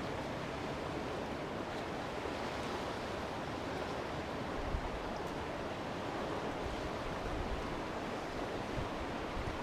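Fast, high-running river current rushing steadily past the bank, an even hiss of moving water, with a few brief low rumbles about halfway through.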